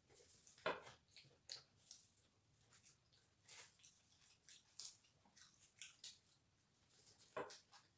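Faint eating sounds: irregular chewing and wet mouth clicks, with a sharper click about a second in and another near the end.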